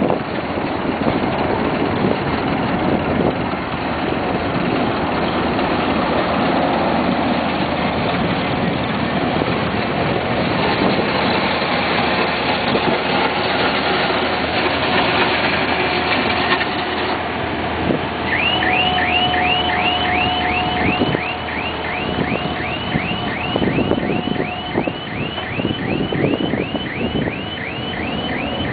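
Small motor grader's diesel engine running steadily as it drives with its blade down on dirt. About two-thirds of the way in, a repeating electronic alarm starts: short rising chirps, about two or three a second.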